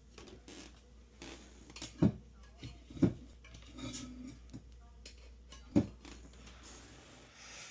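Handling noise: three sharp knocks, about two, three and six seconds in, with small clicks and rattles between them.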